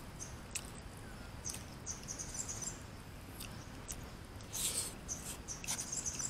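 Small birds chirping in short twittering bursts over a low outdoor background, with a few light clicks of chopsticks and a plastic spoon against a takeaway food tray, and a short burst of eating noise about halfway through as a spoonful is taken.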